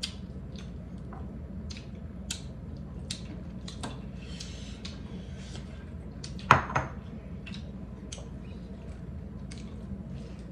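People eating at a meal: wet chewing and mouth sounds with scattered small clicks of hands and cutlery on plates, and one louder knock about six and a half seconds in.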